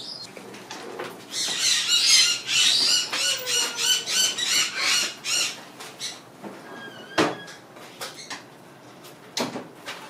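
Cape parrot giving a rapid series of loud, harsh squawks for about four seconds, roughly three a second, while being held. A few sharp knocks follow.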